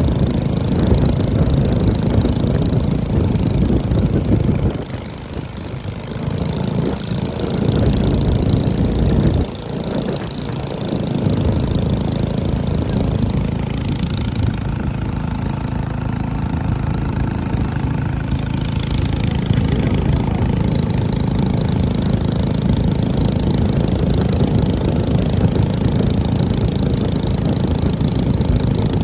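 Small motorised river boats running at full throttle, their engines buzzing continuously. The engine sound drops twice within the first ten seconds, then holds steady.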